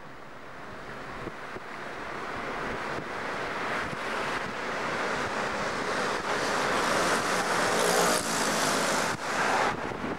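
Road traffic and wind noise heard from inside a moving car: a rushing hiss that swells over several seconds, loudest near the end, then drops off suddenly.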